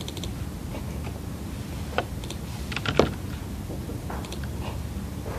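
A few scattered sharp clicks and taps, the loudest about three seconds in, over a steady low hum.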